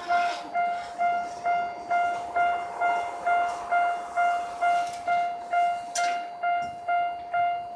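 Japanese railway level-crossing warning bell ringing, an electronic ding repeating steadily about twice a second at one pitch, signalling that the crossing is closed for a train.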